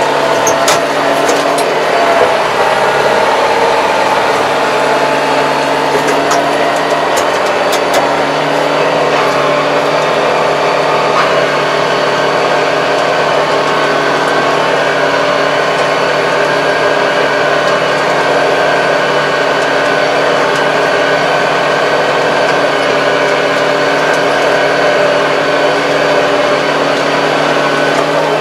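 Tractor diesel engine running steadily under load while pulling a rotary tiller through overgrown weeds, heard from inside the closed cab. A few sharp clicks come in the first second and again around six to eight seconds in.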